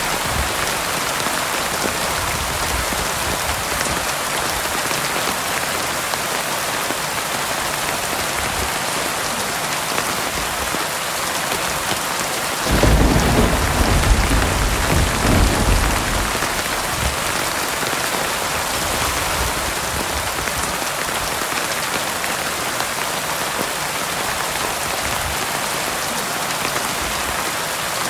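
Heavy rain falling steadily on a hard surface. About halfway through, a roll of thunder starts suddenly and rumbles for about four seconds before fading back under the rain.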